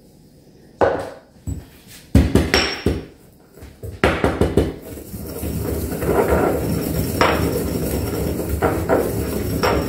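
Pestle working dried herbs in a small white ceramic mortar: a few sharp knocks at first, then from about four seconds in a steady grinding scrape as the dried pasta herb blend is crushed to release its flavour.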